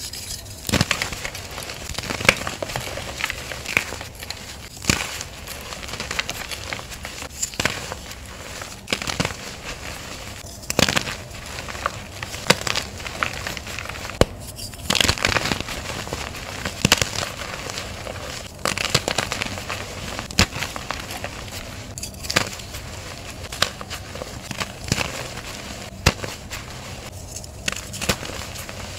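Hands crushing and crumbling gym chalk blocks into powder: an irregular run of sharp crunches and crackles, with soft powdery rustling between them.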